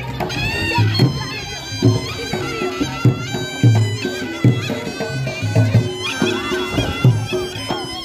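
Reog Ponorogo gamelan music: a slompret shawm plays a nasal, wavering, ornamented melody over low beats that fall roughly once a second.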